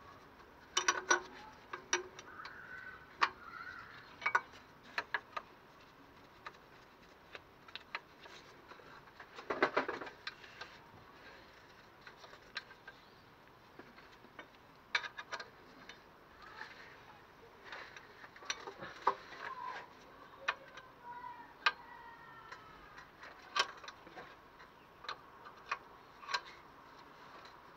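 Irregular metallic clicks and clinks of a spanner working the carburettor mounting bolts on a Morris Minor engine, with a short cluster of knocks about ten seconds in.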